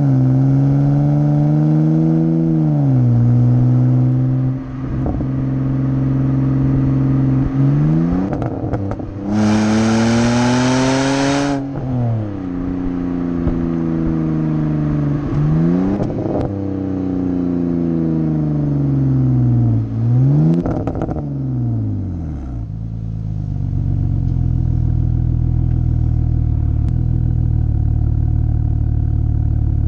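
BMW exhaust recorded right at the tailpipe, the engine note rising and falling through several revs with the hardest pull about a third of the way in, crackles and pops between them as the throttle closes. About two-thirds through it settles to a steady, lower drone.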